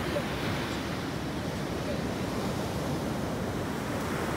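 Steady rushing wind noise on the phone's microphone, with no distinct firework bangs.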